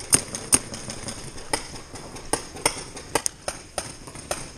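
Paintball markers firing: a quick, even string of shots about two and a half a second at the start, then scattered single shots, some louder and some fainter.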